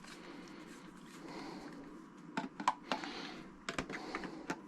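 Plastic clicks and knocks of a Tower VL70 cordless vacuum's battery pack being handled and fitted into the vacuum body. There is faint handling noise at first, then a quick string of sharp clicks in the second half.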